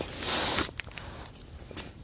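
Handling noise: work-jacket fabric rustling and rubbing against the camera's microphone in a short burst, followed by a few light clicks.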